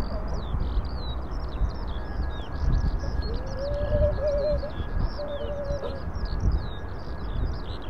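Small birds chirping and twittering continuously, with a lower wavering call for a few seconds about three seconds in, over an irregular low rumble.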